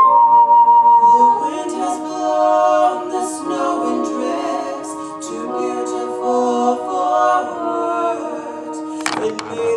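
A stage-musical ensemble singing in harmony, after a held instrumental note at the start, with a brief burst of noise near the end.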